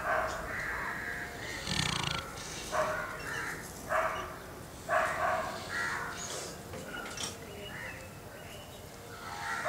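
A sleeping Labrador's snoring breaths, short sounds repeating roughly once a second.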